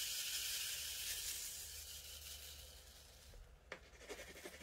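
Tiny black diamond-painting drills being shaken in a plastic sorting tray so they settle into rows: a dense rustling hiss that fades out after about three seconds, followed by a few light clicks.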